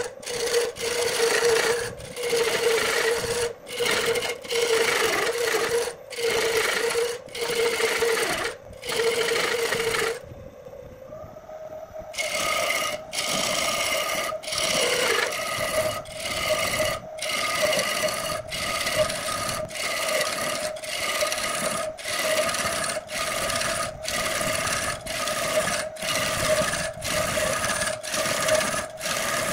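Turning tool cutting into a large wood blank spinning on a lathe, in repeated scraping passes with brief breaks between them over a steady hum. Near the middle the cutting stops for about two seconds. When it resumes, the hum sits a little higher.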